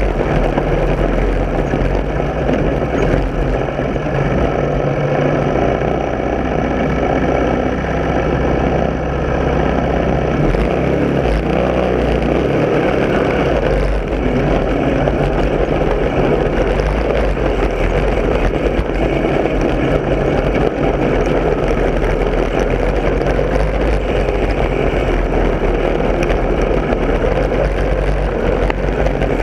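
Lawn mower engine running loudly and steadily, with a brief dip in loudness about nine seconds in.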